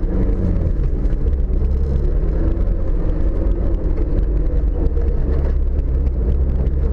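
Off-road vehicle's engine running steadily under load while driving a rutted mud track, heard close from the bonnet.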